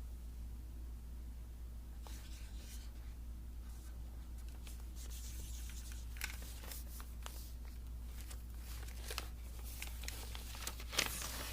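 Drawing strokes scratching on paper, light and intermittent at first, then busier and louder from about halfway in, over a steady low hum.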